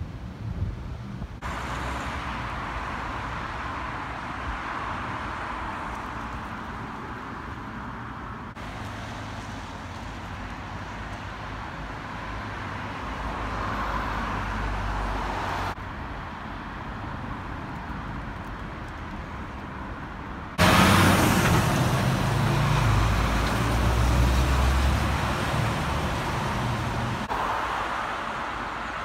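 City street traffic: a steady hum of passing cars, cut into several short stretches that start and stop abruptly. The loudest stretch, about two-thirds of the way through, carries a deeper low rumble of traffic close by.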